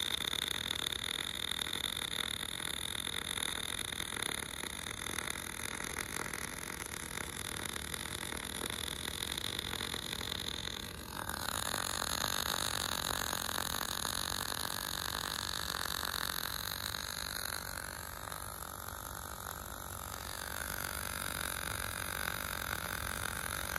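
Automatic bore welder's MIG arc crackling and sizzling steadily as the rotating torch lays a build-up weld run around the inside of a worn bore. The sound changes abruptly about eleven seconds in, then carries on steadily.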